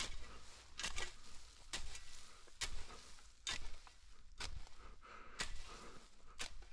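Footsteps at a steady walking pace, about one step a second.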